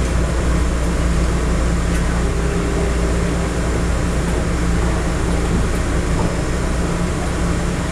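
Steady cabin rumble and hum inside a car of a Taroko Express TEMU1000 tilting electric multiple unit as the train rolls slowly to a halt.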